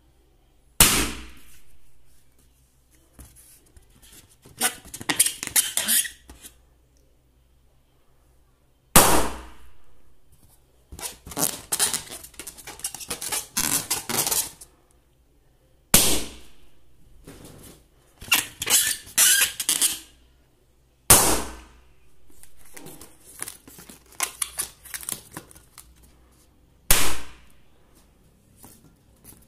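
Latex balloons, one of them filled with confetti, popped with a needle: five sharp bangs several seconds apart. Between the pops come rustling and crinkling bursts as the balloons are handled.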